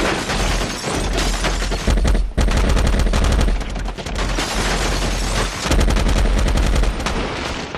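Sustained automatic gunfire from several weapons: a dense, continuous firefight of rapid shots with a heavy low boom underneath.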